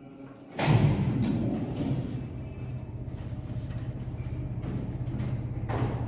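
A lift call button is pressed. About half a second later there is a thump and the Tepper lift's machinery starts, running on with a steady low hum.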